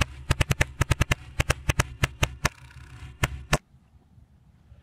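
Full-auto pellet gun firing in short rapid bursts of about ten shots a second, with brief pauses between bursts. The firing stops about three and a half seconds in.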